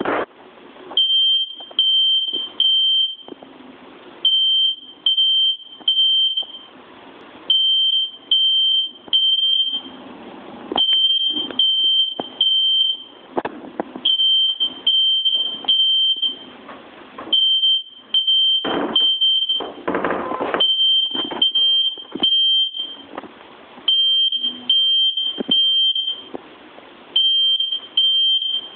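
Smoke alarm sounding its fire-alarm pattern: three high beeps, a short pause, repeating about every three seconds. Irregular knocks and rustling come in between the beeps.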